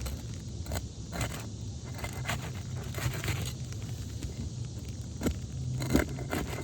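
Asphalt roof shingles being worked loose by hand and tool: a series of short scrapes and crackles as the tabs lift and unseal, over a steady low rumble.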